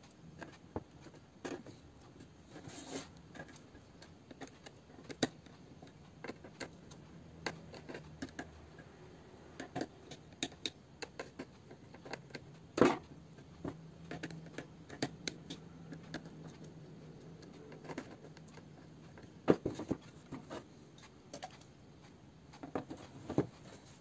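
Scattered small clicks and taps of a screwdriver and small metal parts on a laptop motherboard while the heatsink screws are undone, with a louder knock about halfway through and another later on.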